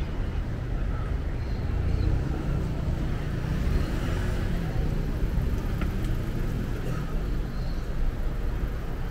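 City street ambience: steady rumble of traffic from passing cars.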